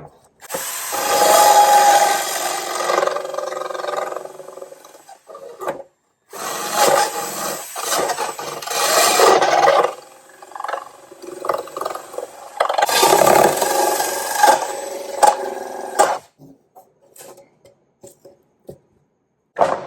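A drill spinning a mini high-speed-steel circular saw blade on a mandrel, cutting into a thin birch board with a rasping whine in three bursts of a few seconds each, with short pauses between.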